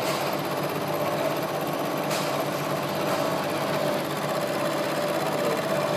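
Vertical milling machine running with its end mill taking a light finishing side cut (peripheral milling) along a workpiece clamped in a vise: a steady mechanical whir with one constant tone.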